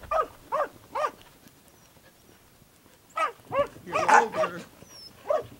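Dog barking in short, separate barks: three in the first second, a pause of about two seconds, then a quicker run of six or seven barks.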